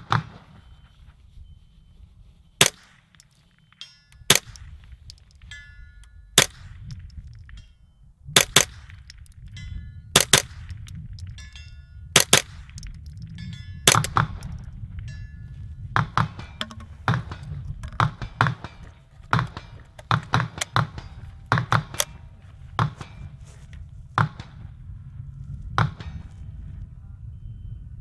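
Ruger 10/22 .22 LR rifle with an 18-inch stainless Green Mountain bull barrel firing a string of single shots, about one every one to two seconds. Some shots are followed by the faint ring of a bullet hitting a distant steel target.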